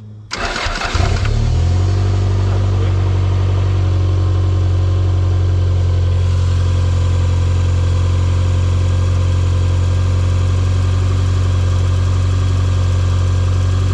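Toyota MR2 Turbo's 3S-GTE turbocharged four-cylinder engine cranking briefly on a second start attempt, catching about a second and a half in, then running at a steady idle.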